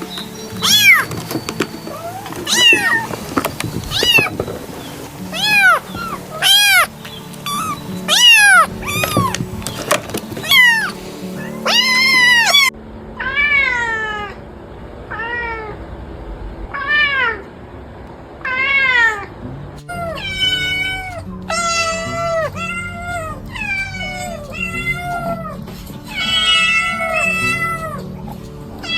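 Domestic cats meowing over and over, one drawn-out, rising-and-falling meow after another about once a second. The recording changes about 13 s in and again about 20 s in, the later meows shorter and more evenly repeated.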